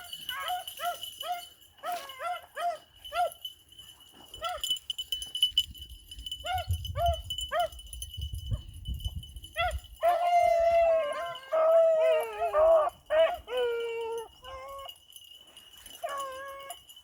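A pack of beagles giving tongue on a rabbit's trail. Quick, short chop barks come about twice a second for the first ten seconds or so, then longer drawn-out bawls that slide down in pitch.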